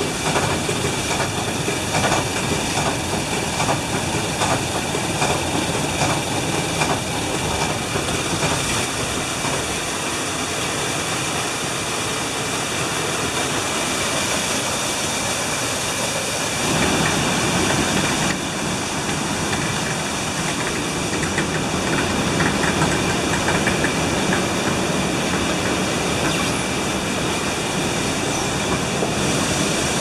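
Water-powered up-and-down frame sawmill from 1796 running: the wooden saw frame clatters in a steady rhythm as the blade cuts pine, over the constant rush of water driving the mill. The sound changes character about halfway through.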